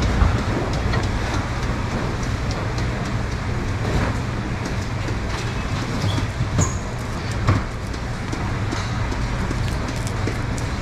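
Steady low machine hum and rumble, with scattered light clicks and a few sharper knocks.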